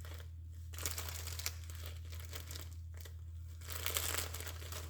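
Papers and kit materials rustling and crinkling as they are handled and bundled together, in several spells with short pauses between them. A steady low hum runs underneath.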